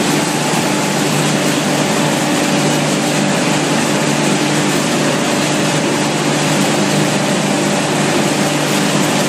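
Wood pellet production line machinery running: a steady, loud industrial drone, a constant hum under an even hiss.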